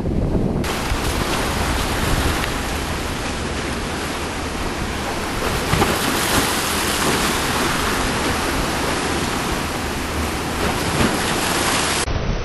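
Rough sea surf: a loud, steady rush of breaking and washing waves. It starts abruptly about half a second in, after a brief lower wind rumble.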